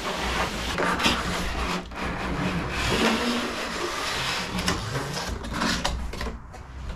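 Cardboard packaging rubbing and scraping as an inner box is slid out of an outer box and its flaps are pulled open, with a few light knocks.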